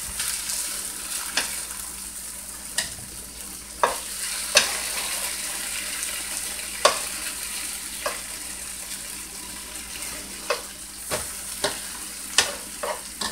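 Browned beef short ribs and onions sizzling steadily in oil in a hot skillet, with a dozen or so sharp clicks of metal tongs against the pan as pieces are lifted out.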